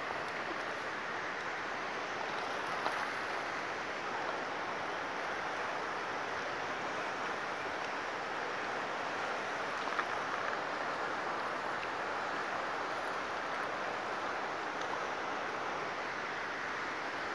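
Steady rushing of a fast-flowing river current along a rocky bank, with a couple of faint clicks.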